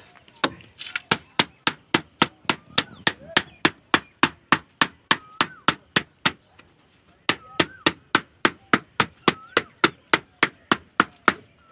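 A sandal smacking against a backhoe loader's cylindrical air filter element, about three sharp slaps a second with a one-second pause partway through, beating the dust out of the filter.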